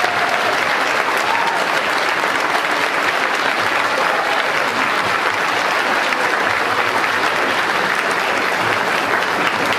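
Audience applauding steadily, the dense clapping of many hands.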